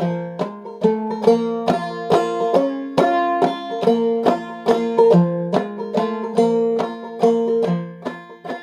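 Five-string banjo played clawhammer style in sawmill tuning, capoed at the third fret: an instrumental passage of a tune in three-time, a steady run of sharply plucked notes that ring on.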